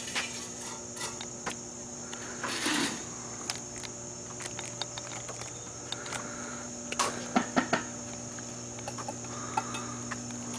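Insects chirring steadily in a high, even drone, over a faint low steady hum, with scattered light clicks and taps, a few of them close together about seven seconds in.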